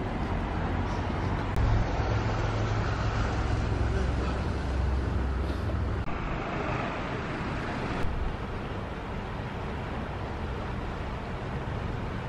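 Steady outdoor background noise with a deep rumble through the first half, like traffic or wind. A brief click about eight seconds in, after which the noise is a little quieter.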